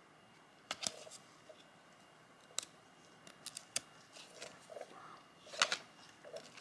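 Trading cards being handled and peeled apart where they stick together: a few sharp clicks and light rustles, the loudest near the end.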